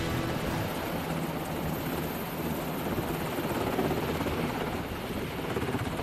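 MH-60 Seahawk helicopter hovering low over a ship's flight deck: steady rotor and turbine noise.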